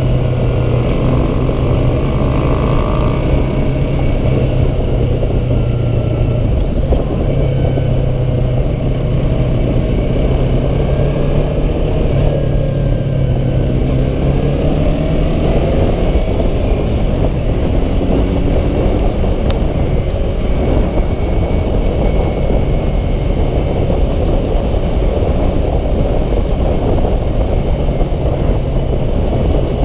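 Yamaha R3 parallel-twin engine running under way with heavy wind noise on the microphone. The engine pitch rises and falls as the throttle is worked through the curves.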